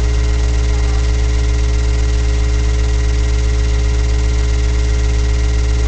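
Steady electrical mains hum with a stack of even overtones, loud and unchanging throughout.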